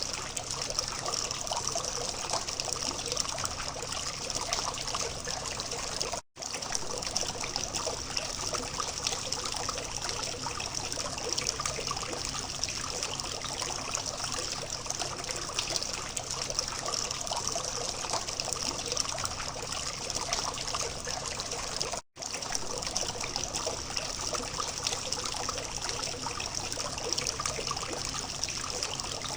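Water from a small fountain trickling and splashing steadily. The sound cuts out for an instant twice, about 6 seconds and 22 seconds in.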